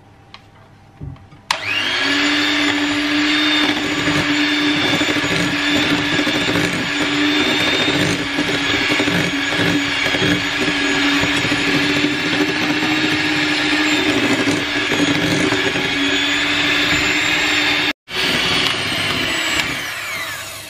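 Electric hand mixer switching on about a second and a half in and running steadily at one pitch, its beaters creaming butter and sugar in a glass bowl until the mix turns pale. A momentary break shortly before the end, then the motor winds down, falling in pitch.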